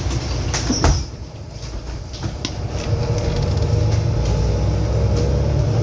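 City bus interior: a sharp clunk about a second in, after which the sound drops, as the doors shut. Then the engine rumble builds, with a faint rising whine, as the bus pulls away from the stop.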